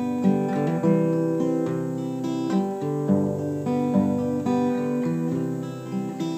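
Cutaway acoustic guitar playing a chord pattern, its notes ringing on with a change of chord about every second.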